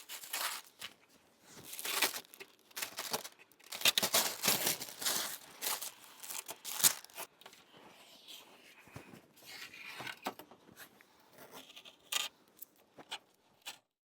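Masking tape being peeled off a freshly painted composite glider fuselage and crumpled, in irregular tearing rasps. The sound cuts off abruptly near the end.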